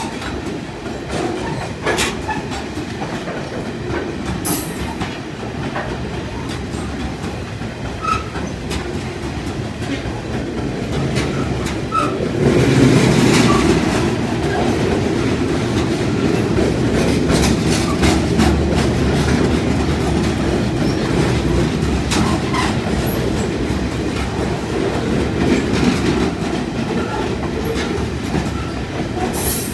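Freight train of coal hopper wagons rolling past close by: a steady rumble of wheels on rail with rapid clicks over the rail joints, getting louder about halfway through.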